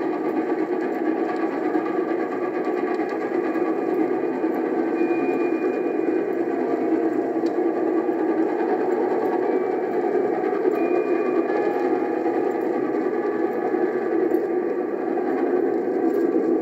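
A steady rumble from a Norfolk and Western Class J steam locomotive, No. 603, and its train of cars, heard from a vinyl record played back with faint surface ticks.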